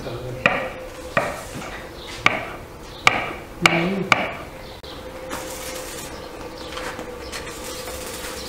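Kitchen knife chopping mushrooms on a wooden cutting board: about six sharp knocks of the blade on the board, spaced roughly a second apart, in the first half, then fainter.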